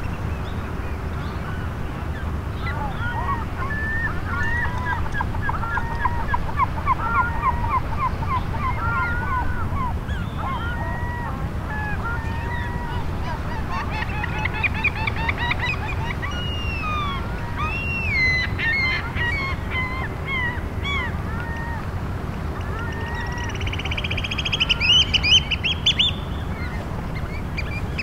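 A flock of Eurasian oystercatchers calling: bursts of rapid repeated piping notes and scattered single calls, with a loud, fast trill near the end. Under them is the steady low wash of small waves on the tidal flat.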